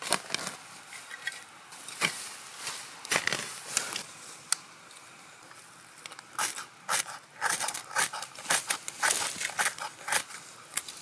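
Fire steel (ferro rod) being scraped hard against a bundle of bark shavings and dry tinder, a run of short sharp rasping strikes about three a second from about six seconds in, throwing sparks to light the tinder. Before that, scattered crackles and rustles of turf and dry plant material being handled.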